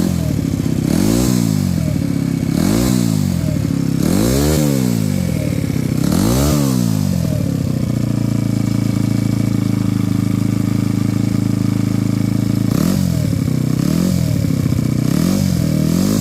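A Maddog scooter engine is revved four times in long rising and falling pulls, settles to a steady idle, then is blipped three more times near the end. The title calls these spoolie sounds.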